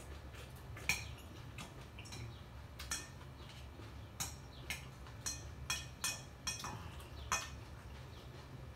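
Chopsticks and a ceramic spoon clicking and clinking against a glass bowl while eating, a dozen or so light, irregular taps over a low steady hum.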